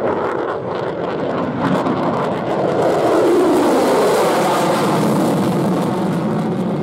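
The twin Pratt & Whitney F119 afterburning turbofans of an F-22 Raptor running in afterburner, a loud, continuous jet roar. It swells to its loudest a few seconds in and then eases slightly as the jet climbs away.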